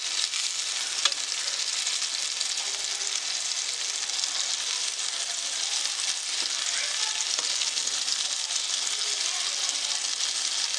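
Karli (silver bar fish) pieces shallow-frying in hot oil: a steady sizzle, with a few light clicks of steel tongs turning the pieces.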